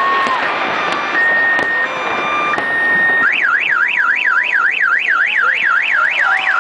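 Car alarm sounding, cycling through its tone patterns: steady tones switching between a higher and a lower pitch, then about three seconds in a fast rising-and-falling warble of about four sweeps a second.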